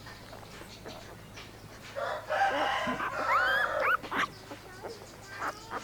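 Rooster crowing once, loud, for about two seconds starting about two seconds in, with short chicken calls before and after.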